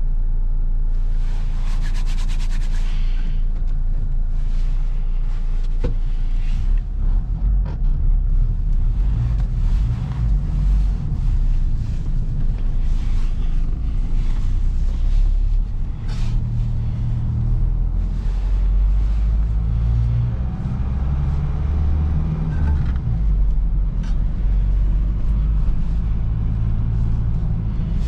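Nissan NV200's 1.5 dCi four-cylinder diesel running with a steady low rumble, its note shifting in the second half.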